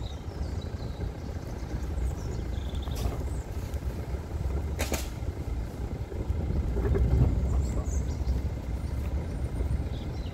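Steady low rumble of a vehicle driving along a rough track, with a single sharp knock about five seconds in.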